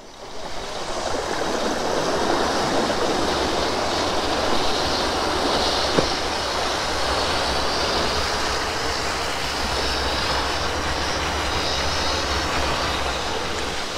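Cable wakeboard system running as its overhead cable pulls a rider out of the water and away: a steady rushing rumble that builds over the first second or two, then holds.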